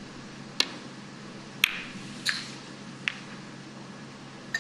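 Snooker cue striking the cue ball, then resin snooker balls clicking against each other as the shot is played: five sharp clicks spaced roughly a second apart, the loudest about a second and a half in.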